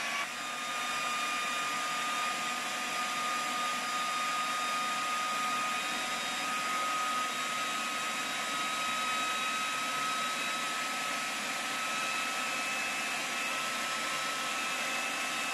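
Food processor motor running steadily with a high whine, blending butter-cake batter.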